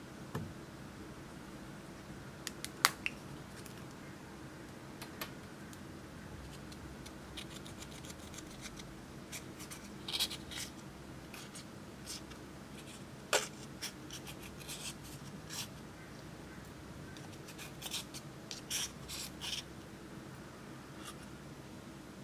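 Small scissor tips scraping and breaking up pressed eyeshadow powder in a compact palette: scattered short scratchy strokes and sharp clicks, the loudest a click about three seconds in and another near the middle.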